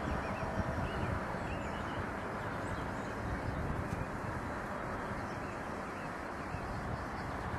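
Steady open-air background noise with a low wind rumble on the microphone, and a few faint short chirps in the first three seconds.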